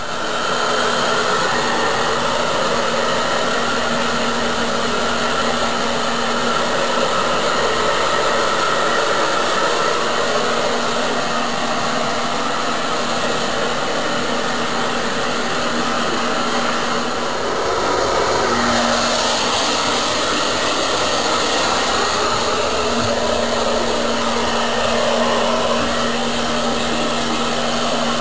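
Handheld electric hair dryer blowing steadily, switched on right at the start, a rushing airflow over a steady motor hum. The sound falters briefly about two-thirds of the way through, then carries on.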